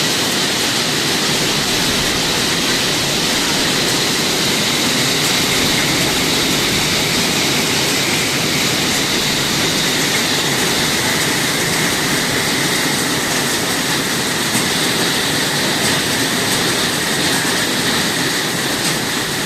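Heavy rain mixed with hail pouring down, a loud steady rush of noise that holds unchanged throughout.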